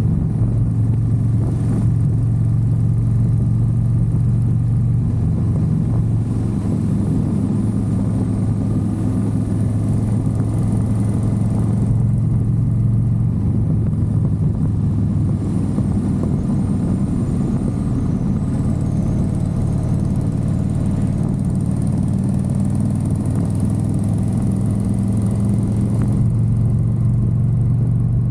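Motorcycle engine running steadily while riding, with wind and road noise; the engine note eases off about midway and picks up again toward the end.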